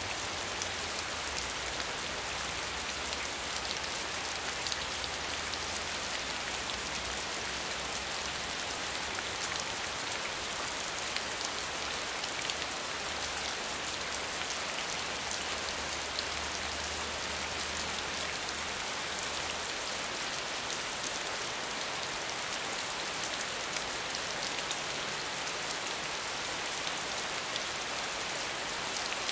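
Steady medium rainfall: an even hiss of rain with many fine drops pattering on a surface.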